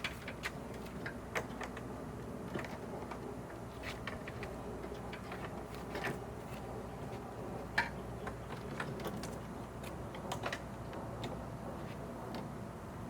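Irregular light clicks and taps from hands handling small parts and wiring inside a car door, the sharpest about two-thirds of the way through, over a low steady hum.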